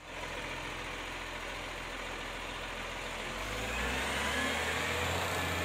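Garbage truck's engine running as the truck moves off along the street. Its low engine hum grows louder about three and a half seconds in.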